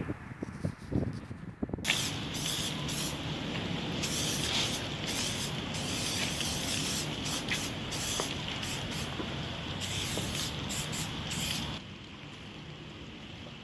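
Aerosol spray-paint can hissing in repeated bursts of varying length as graffiti letters are sprayed onto a wall. It starts about two seconds in and stops about two seconds before the end.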